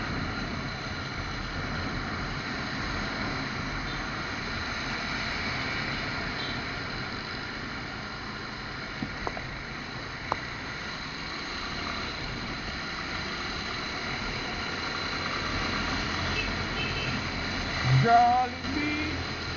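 Steady hum of wind and traffic heard from a moving motorcycle, with a few faint clicks about halfway through. Near the end a short louder burst that sounds like a voice.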